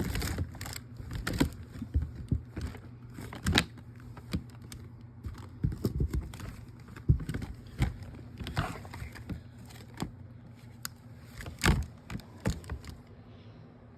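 Rummaging through a storage bin of craft goods: scattered knocks, clicks and crinkling of plastic, over a low steady hum.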